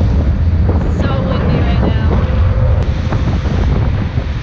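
Heavy wind buffeting the camera microphone on a moving sportfishing boat, over a steady low rumble from the boat's engines.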